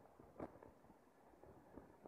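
Near silence: faint low background noise during a pause in the cricket's chirping, with one soft tick about half a second in.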